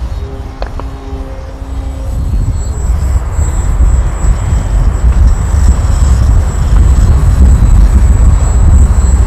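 Strong gusty wind buffeting the microphone, its rumble growing louder after about two seconds, over the thin steady high whine of an electric RC aerobatic plane's brushless outrunner motor in flight.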